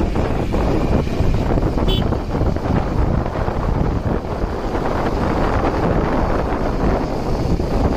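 Wind noise buffeting the microphone of a moving motorcycle, mixed with the bike's engine and road noise.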